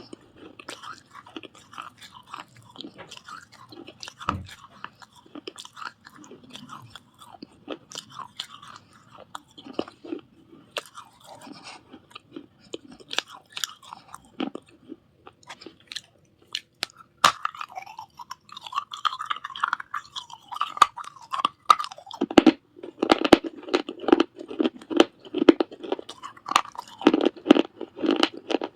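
Pieces of a baked clay surahi (water pot) being bitten and chewed: a steady run of crisp crunches and crackles. The crunching grows louder and denser in the last several seconds.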